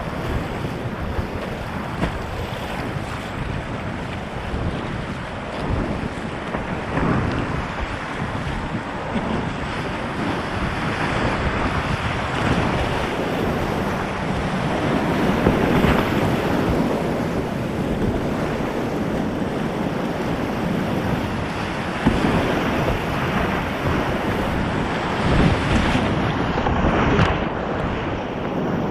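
Whitewater rapids rushing and crashing around a kayak as it is paddled through, with splashing from the waves and paddle strokes and wind buffeting the microphone. The rush grows a little louder about halfway through, with several brief surges.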